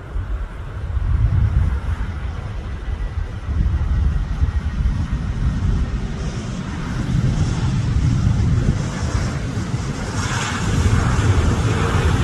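Boeing 737 MAX 8's CFM LEAP-1B jet engines at taxi power, a steady rumble that grows louder as the airliner passes close, about ten seconds in.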